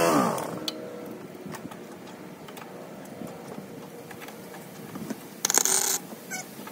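A humming motor winds down in pitch and stops in the first half second. Then, about five and a half seconds in, a wire-feed welder strikes a short arc of about half a second, a crackling hiss, tacking the aluminum mower-deck frame.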